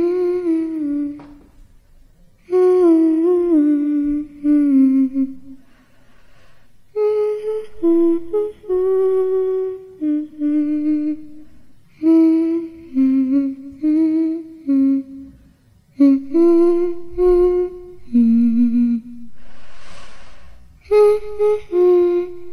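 A voice humming a slow, wavering tune in short phrases with pauses between them, with a breathy hiss about twenty seconds in.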